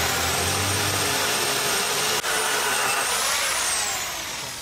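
Loud, steady rush of storm wind from an EF0 tornado blowing across the microphone, easing off near the end.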